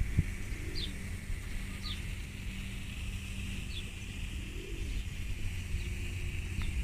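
A small bird repeating short, high, falling chirps every second or two, over a steady low hum and outdoor background noise.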